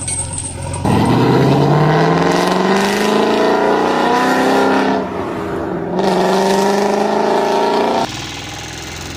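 Car engine revving, a sound effect: one long rise in pitch starting about a second in, a short dip, then a second rise that cuts off near the end.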